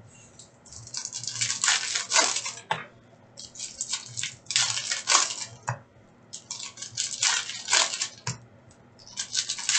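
Foil wrapper of a hockey card pack crinkling and tearing as it is ripped open by hand, in repeated bursts of crisp rustling, as the cards are pulled out.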